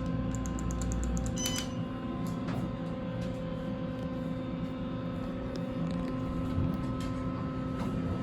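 Steady mechanical hum with several held tones. About half a second in comes a quick run of ticks, ending in a short bright ring about a second and a half in.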